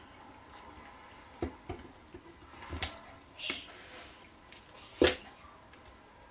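Kitchen scissors snipping at a raw whole tilapia to cut away its teeth: a handful of separate sharp snips, the loudest about five seconds in, with light wet sounds of the fish being handled in water.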